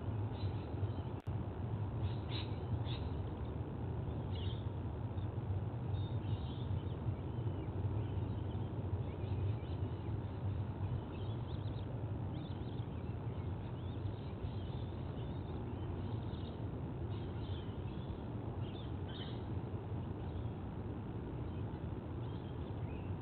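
Short, high bird chirps come every second or so over a steady low rumble.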